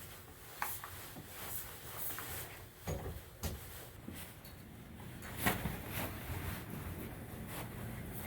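Several scattered short knocks and clicks, with the loudest about three and five and a half seconds in, over a low steady background noise.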